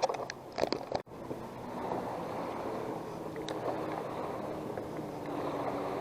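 Steady wind and water noise around a small fishing boat, with a few short clicks and knocks of handling in the first second.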